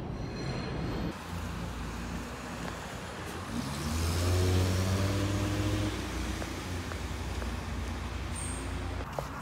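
Car traffic on a wet street. A car close by pulls away about four seconds in, its engine note rising, over the steady hiss of tyres on the wet road.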